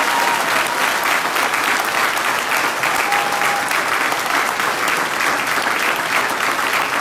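Crowd applauding: many hands clapping at once, steady and loud.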